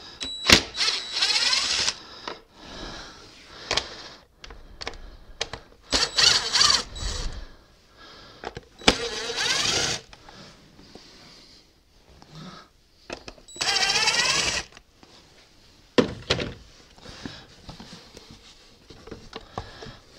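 DeWalt 20V cordless drill/driver backing out the screws of a car's plastic air filter housing lid: four runs of one to two seconds each, the motor rising in pitch as it spins up, with clicks and knocks from handling the housing in between.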